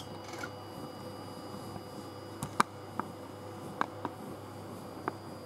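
Small cooling fan on a 3D printer's extruder running with a steady hum and a faint whine while the hotend heats up and the printer stands still. A handful of light sharp clicks come between about two and five seconds in.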